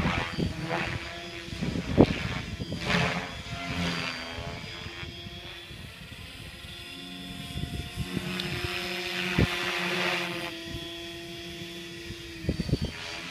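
Align T-Rex 550 DFC electric RC helicopter flying aloft: a steady motor and rotor whine whose pitch shifts, with the blade noise swelling and fading as it manoeuvres. A few sharp bumps are heard, the loudest about two seconds in.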